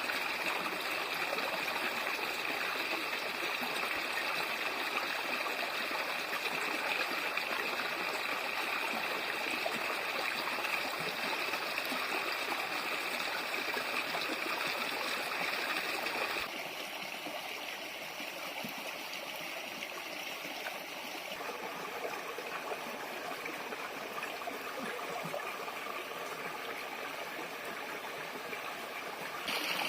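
Running water flowing steadily, a continuous rushing and trickling. A little past halfway it changes abruptly to a quieter, softer flow.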